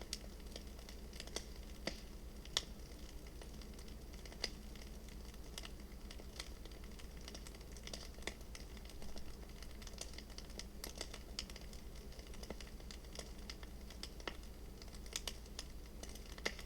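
Bonfire crackling, with irregular sharp pops and snaps.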